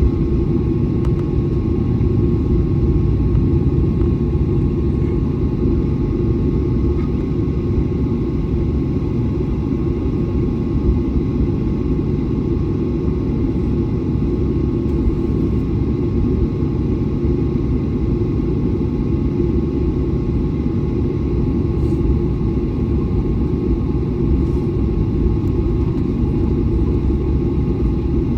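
Airliner taxiing: a steady low rumble with a constant jet-engine hum, the engines held at low taxi thrust.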